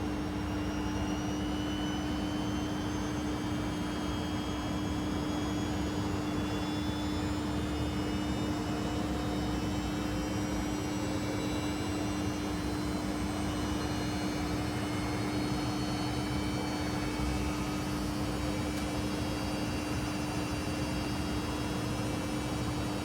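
Panasonic XQG32-A312D compact washing machine running: a steady motor hum with a faint higher whine that slowly rises in pitch.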